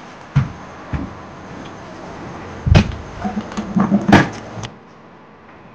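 A few knocks and thumps of hard objects being handled: two single knocks in the first second, a heavier thump near three seconds, then a quick run of clattering knocks, loudest about four seconds in, that stops abruptly just before five seconds.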